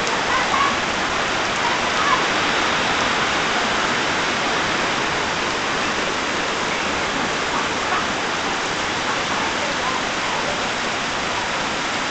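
Heavy monsoon rain falling steadily on foliage and the ground, an even, unbroken hiss.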